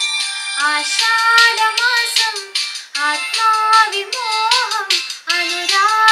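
A young girl singing a song into a microphone. Her voice moves in phrases with bending, turning pitch, and she breaks briefly between phrases about three seconds in and again near five seconds.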